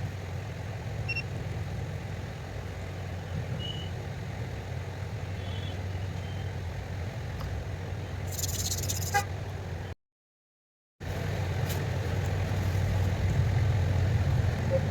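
Steady low background hum, with a brief high hiss about eight seconds in and a sudden one-second dropout to silence about ten seconds in.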